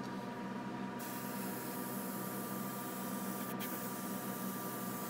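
Gravity-feed airbrush hissing as it sprays, starting abruptly about a second in, with a brief break a little past halfway. A steady low hum runs underneath.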